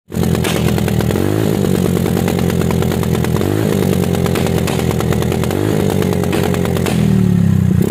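Yamaha Mio Soulty scooter's single-cylinder engine running with an interrupter relay cutting the ignition, so the aftermarket exhaust backfires in a rapid, continuous string of pops. The engine pitch dips and picks up again about every two seconds.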